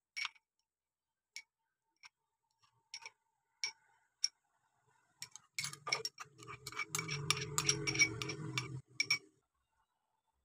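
A metal spoon clinks against a glass bowl six times, with a second or so between clicks. Then comes a dense run of clatter and scraping as soaked cashews and charmagaz seeds slide from the glass bowl into a steel mixer-grinder jar, loudest just before the end and stopping sharply after about three and a half seconds.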